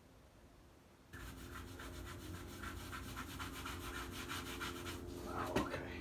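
Grout being rubbed by a gloved hand over a broken-tile mosaic: quick, repeated scrubbing strokes across the tile surface, starting about a second in. A sharp knock sounds near the end.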